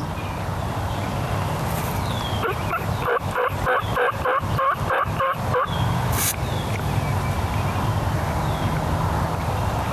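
A turkey's yelping call: a series of about nine evenly spaced yelps over some three seconds. A sharp click follows just after, over a steady low hum.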